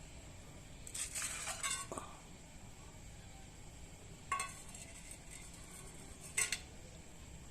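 Dishes clinking and rattling in three bursts: a run of clinks about a second in, a sharp clink near the middle, and another near the end.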